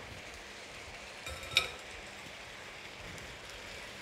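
Beef, peppers and onions frying in a stainless steel wok, a steady soft sizzle, while they are stirred; about one and a half seconds in there is a small knock and then a single short ringing clink.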